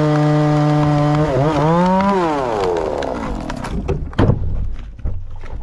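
Stihl chainsaw running at high speed, then dipping, rising and winding down over about two seconds. Then a run of sharp cracks and a heavy thud about four seconds in, with a second thump a second later, as the big dead fir tree falls and hits the ground.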